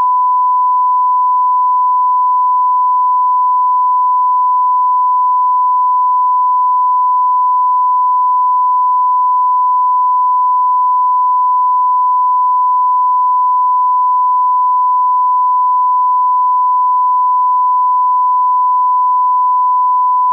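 A continuous pure electronic test tone, a single unwavering beep at one pitch, held at a steady level without a break.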